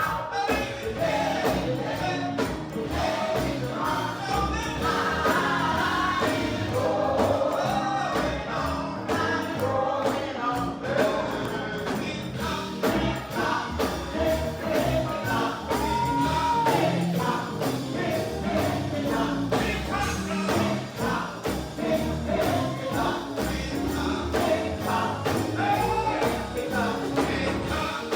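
Gospel choir singing over a steady beat.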